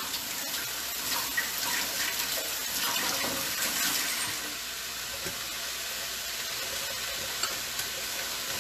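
Food frying in a pan on the stovetop: a steady sizzling hiss with a few faint pops, a little louder in the first half.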